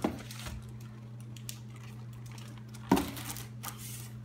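A hardcover picture book being handled, with light page rustles and one sharp thump about three seconds in as it is set down on the table. A steady low hum runs underneath.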